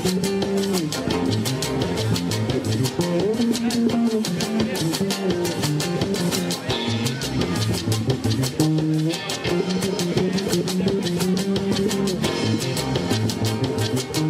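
Live band playing an instrumental passage: electric guitar, bass guitar and drum kit keeping a fast, steady beat, with no singing.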